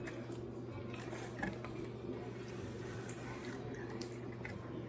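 Quiet eating sounds, a few soft small clicks and squishes of chewing and handling food, over a steady low background hum.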